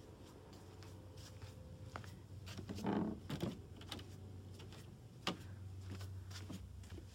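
A low steady hum under scattered light knocks and rustles from someone moving through a room. The loudest is a dull thud with rustling about three seconds in, and a sharp click comes about two seconds later.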